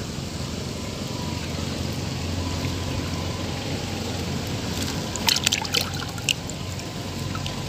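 Shallow water trickling and lapping at a muddy bank, with a few sharp clicks and small splashes about five to six seconds in.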